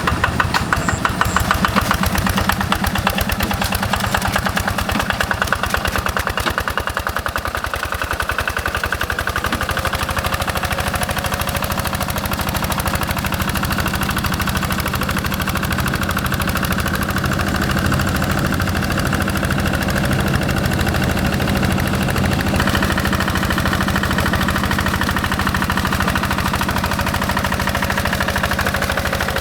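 Single-cylinder Yanmar diesel of a Quick G1000 hand tractor running continuously with a rapid, even knock.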